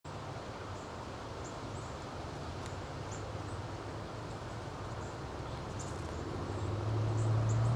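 An ATV engine running at a steady low idle, its hum growing louder near the end. Faint short high chirps sound now and then above it.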